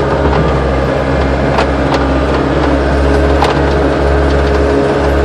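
Caterpillar 287B compact track loader's diesel engine running steadily under way, with a few sharp clanks from the machine.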